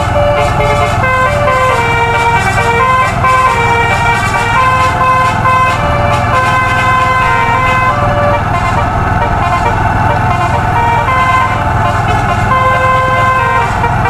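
A bus's 'telolet' musical air horn playing a melody of short held notes that step up and down in quick succession, over a steady low engine rumble.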